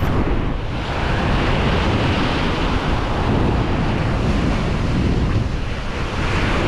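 Small surf waves breaking and washing up a sandy beach in a steady rush, with wind buffeting the microphone.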